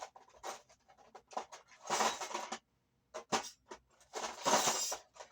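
Scratchy handling noise from working on the guitar at the bench: short rustles and clicks, with two longer scratchy bursts, one about two seconds in and one near the end.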